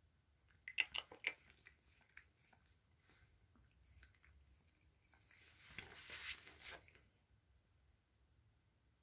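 A Pomeranian licking a person's skin: a quick run of wet lapping clicks about a second in, then a longer soft rustling a little past the middle.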